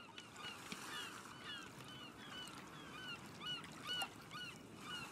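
A flock of seabirds calling faintly in many short, repeated, overlapping cries, over a light steady hiss of seaside ambience.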